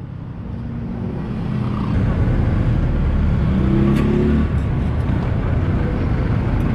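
Street noise: a steady low rumble of traffic that grows louder over the first two seconds, with faint voices and a single sharp click about four seconds in.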